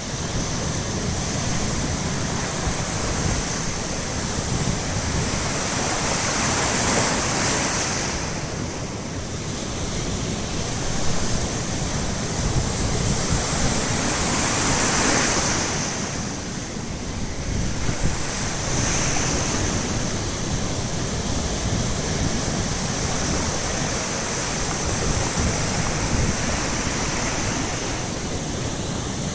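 Baltic Sea surf breaking on the shore: a continuous wash of water noise that swells and eases every few seconds as waves come in. Wind buffets the microphone with a low rumble.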